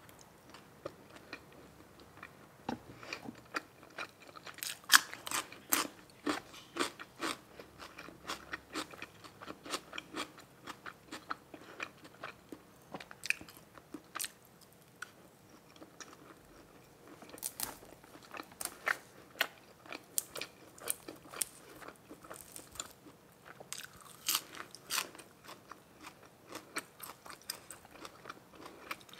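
A person eating: irregular bites, crunches and chewing of grilled pork balls with raw vegetables, pausing briefly about halfway.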